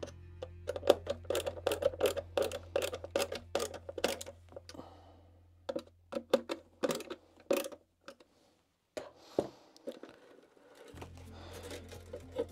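Irregular light clicks and plastic taps as the plastic cab of a Tamiya Mercedes Arocs 4151 RC tipper truck is handled while its visor and light wires are fitted, with quiet background music underneath.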